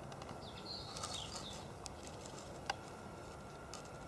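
Quiet outdoor ambience with faint short bird chirps about a second in and a single sharp click near the middle.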